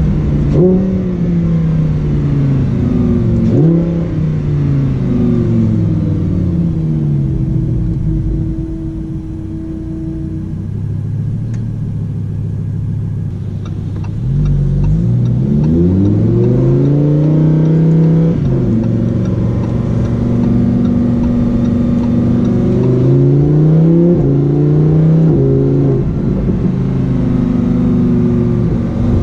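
Lamborghini Huracán Performante's V10 engine revving. The pitch climbs and falls back several times in quick succession, then holds a lower, quieter steady note for several seconds. About halfway through it climbs again and holds higher, then blips up and down repeatedly near the end.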